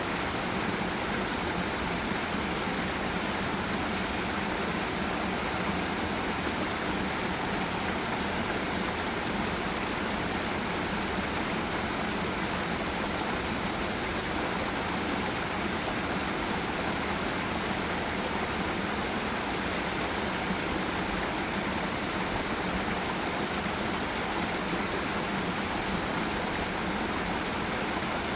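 Steady rushing of a forest stream and waterfall, an even, unbroken wash of water noise.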